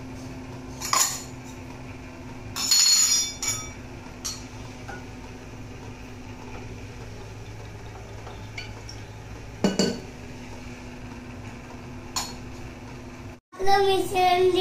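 Metal clinks from a stainless-steel oil dispenser being opened and tipped against a frying pan to pour oil. There are a few scattered clinks; the loudest, about three seconds in, rings briefly.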